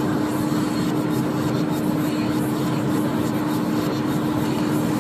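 Car driving at motorway speed, heard from inside the cabin: steady road, tyre and engine noise with a constant humming note running under it.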